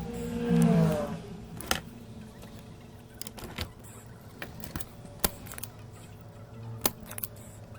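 Sparse, sharp clicks and taps of small metal hand tools at an electronics repair bench. Near the start there is a brief louder sound that falls in pitch.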